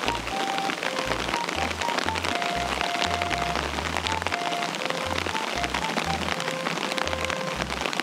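Background music: a simple melody of short held notes over a bass line, with a steady patter of rain underneath.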